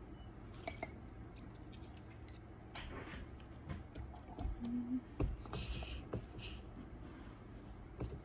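Faint handling sounds of a squeeze tube of dog treat paste being pressed into a rubber treat ball and capped: scattered light clicks and taps, with a few soft rubbing sounds.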